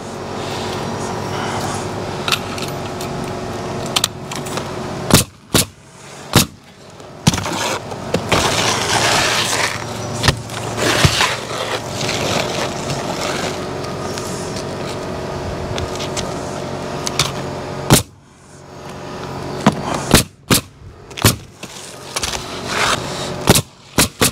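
Pneumatic coil roofing nailer firing nails through asphalt shingles: sharp single shots, scattered at first and several in quick succession near the end. A steady motor hum runs underneath and cuts out suddenly about 18 seconds in.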